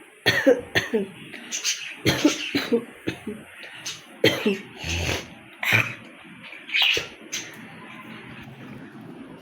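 A woman coughing hard and repeatedly, a dozen or so separate coughs and hawks in quick succession, stopping near the end.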